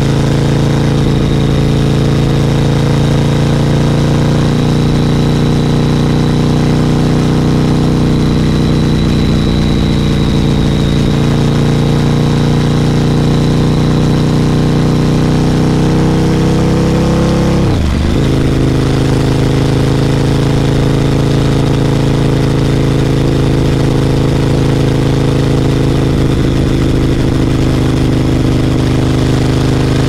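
Ducati Monster 1100 EVO's air-cooled L-twin running steadily through a Competition Werkes GP slip-on exhaust while riding. There is one brief dip in the note a little over halfway through.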